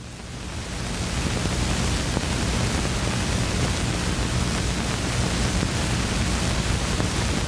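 Steady hiss with a low hum underneath, the soundtrack noise of a 16mm film running over blank leader. It fades in over the first second.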